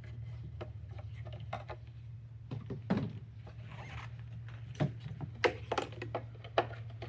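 Plastic clicks and knocks from the air intake duct and its clip being worked loose by hand, with a few sharp snaps in the second half, over a steady low hum.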